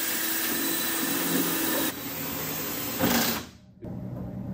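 Cordless drill running steadily, drilling a hole through the sheet-metal fender patch for a Cleco fastener; its tone drops about two seconds in, swells briefly and stops after about three and a half seconds, followed by a few faint knocks.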